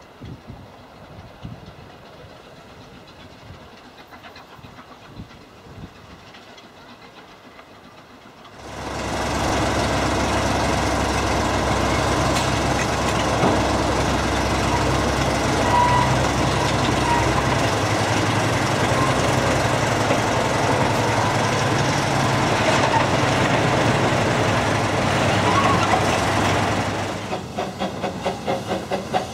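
Faint background sound at first. About nine seconds in, a large engine suddenly starts up loud and steady and runs evenly until just before the end. Then a narrow-gauge steam locomotive's exhaust beats come in, about three a second.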